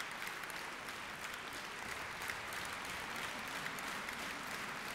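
A large crowd applauding steadily: many hands clapping together.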